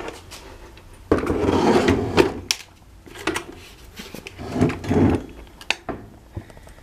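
A table fan being picked up and turned over by hand: irregular scraping and rustling with knocks and sharp clicks, busiest in two stretches before falling quiet near the end.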